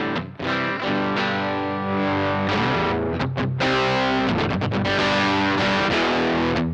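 Electric guitar with P90 pickups (a Reverend Pete Anderson PA-1) played through a Laney Lionheart L5 Studio valve amp and taken from the amp's direct output rather than a microphone. Chords are struck and left to ring, with a run of quick strums about halfway through and a long held chord near the end.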